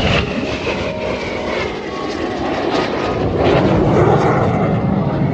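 Aircraft flying past, loud engine noise with a high whine that slides down in pitch as it passes.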